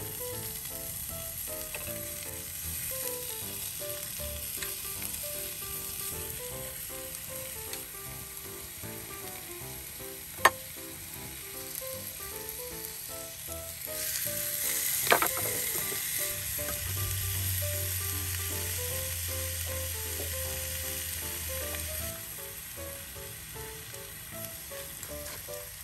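Pork-belly rolls sizzling in an aluminium skillet over a campfire: a steady frying hiss that swells for a few seconds about fourteen seconds in, with two sharp clicks, one about ten seconds in and one at the swell.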